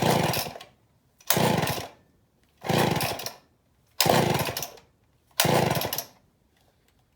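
Old Homelite chainsaw being pull-started: five short bursts about 1.4 s apart, each pull turning the engine over or firing it briefly without it running on. The owner blames a bad ignition coil for it not running right.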